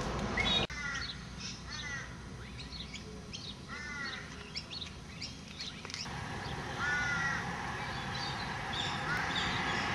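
Crows cawing, a few drawn-out arching caws, with smaller birds chirping high and brief in between.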